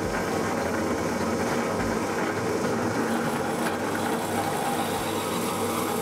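Drill press running steadily as a hole saw bores into a pine board.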